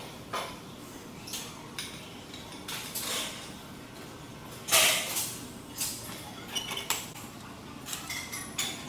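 Gym free weights clanking: metal barbells and weight plates knocking and clinking in a scatter of sharp hits, the loudest about five seconds in, over a steady room hum.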